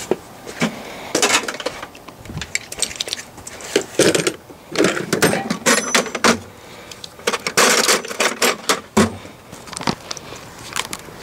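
Metal hand tools clinking and clattering as they are put away. The sound comes as a string of sharp clanks and rattles in several bunches.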